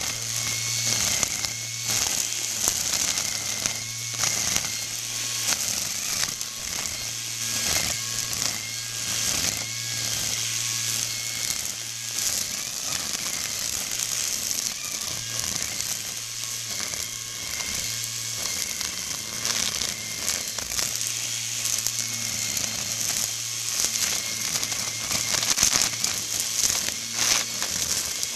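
GreenWorks electric string trimmer running with zip ties in place of cutting line, its motor humming steadily while the spinning ties chop through long grass and weeds with a constant rapid clatter of small hits.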